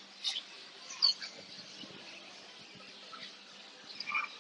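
Small cage birds giving a few short, high chirps over a faint steady hum.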